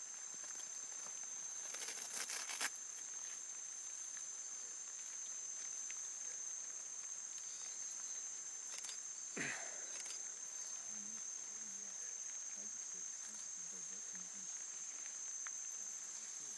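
Steady high-pitched drone of insects. Over it come a short burst of rustling about two seconds in and a brief falling sound about nine seconds in.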